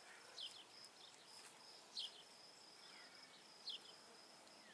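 Faint evening insect chorus: a steady high-pitched trill, with a short falling chirp that repeats three times, about every second and a half.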